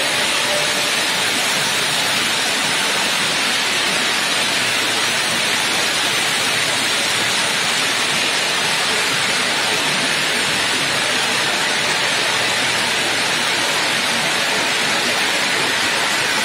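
Steady, even hiss of bridge-type stone-cutting saws running in a granite-cutting workshop, with no clear blade tone or rhythm.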